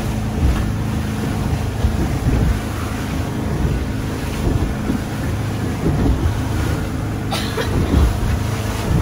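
Motorboat running at speed: a steady engine drone under the rush of water along the hull and wind buffeting the microphone, with a few thumps near the end.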